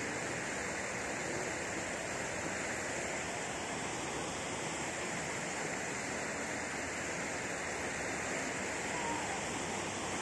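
Steady rush of splashing water from fountain jets falling into pools.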